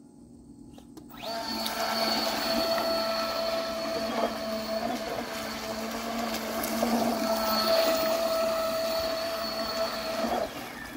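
Small RC model boat motor driving a 1/10-scale pontoon boat's scale outboard, running with a steady high whine over water swish. It comes in about a second in, dips and rises in pitch briefly a couple of times with the throttle, and cuts off just before the end.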